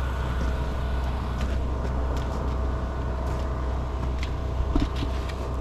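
An engine running steadily with a constant low drone, with a few light knocks near the end.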